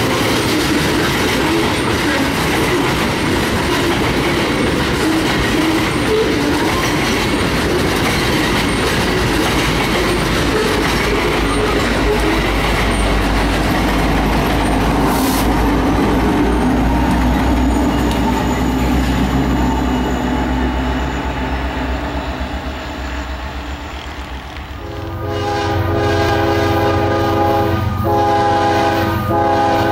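Loaded tank cars of a freight train rolling past with wheels clacking over the rail joints, then the train's rear pair of EMD SD70ACe distributed-power diesel locomotives going by with a low steady engine rumble. About 25 seconds in, a multi-note diesel locomotive air horn from an approaching GE ES44AC-led freight train starts sounding, held long with two short breaks.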